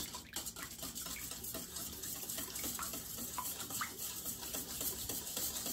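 Wire whisk beating buttermilk and eggs in a stainless steel bowl: liquid swishing, with many light clinks of the whisk against the metal bowl.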